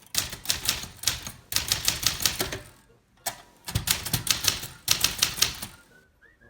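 Manual typewriter being typed on, a 1963 Penncrest Caravelle (a rebranded Smith Corona 5AX Sterling): rapid keystrokes in two runs, with a short pause about three seconds in.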